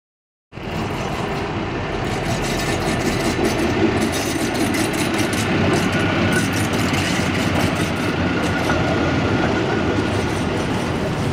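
Hi-rail truck running along the railway track close by: its engine and its wheels running on the rails make a steady noise that starts suddenly about half a second in.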